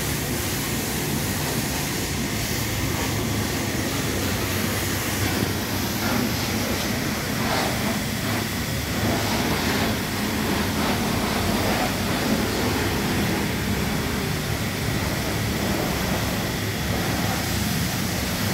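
Steady car-wash background: an even rushing hiss with a low motor hum beneath it.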